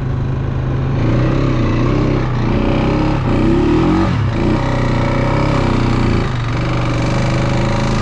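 ATV (four-wheeler) engine running under way, its note rising and falling with the throttle, most noticeably around the middle.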